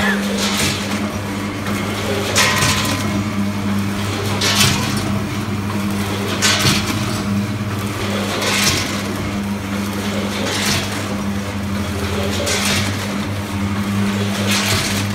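AC 10 fully automatic weighing and packing machine running, with a steady hum and a short burst of rushing noise about every two seconds, one packing cycle after another.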